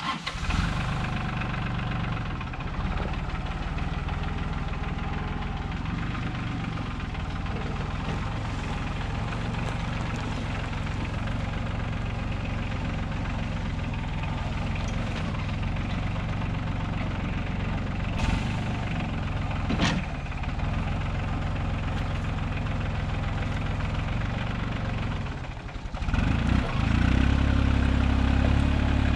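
Compact tractor engine starting up and then running steadily as the tractor is driven. Near the end it dips for a moment, then runs louder as it comes close.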